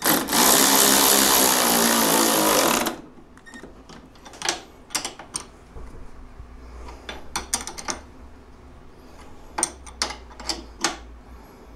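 Cordless electric ratchet runs for about three seconds, driving down the shock's lower mounting bolt on a snowmobile's lower A-arm, then cuts off. A scattering of light clicks and taps follows as the tool and bolt are handled.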